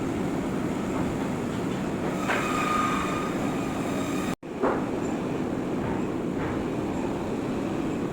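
Knife blade being ground on a sharpener: a steady rumbling grind, with a brief thin whine a little over two seconds in and a momentary break partway through.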